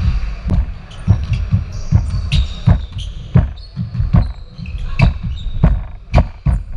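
Basketballs bouncing on a hardwood gym floor, a run of dull thumps about two to three a second, the loudest from a ball dribbled close by near the end, with short high sneaker squeaks between them.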